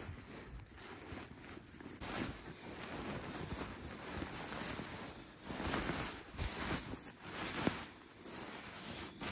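Nylon shell of a down sleeping bag rustling and swishing in uneven swells as it is rolled up and stuffed into a backpack.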